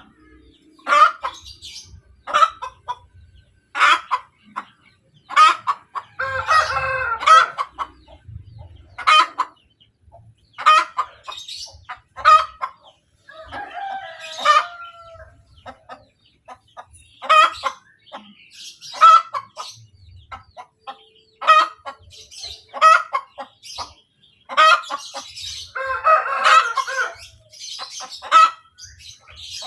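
Domestic hen cackling its egg song after laying: a run of short, sharp clucks about every second or so, broken by a couple of longer drawn-out calls.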